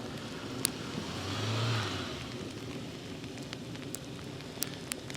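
A car's engine and tyres swell briefly about a second and a half in and fade again, over a steady hiss with scattered sharp ticks.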